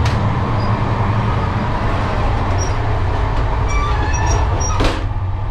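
Passenger train coach running, heard from inside: a steady low rumble of wheels on track, with a few faint brief high squeaks and one sharp click about five seconds in.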